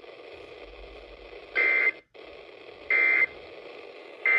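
Emergency Alert System end-of-message data tones: three short, loud digital data bursts about 1.3 seconds apart, over a steady background hiss. They mark the end of the broadcast warning.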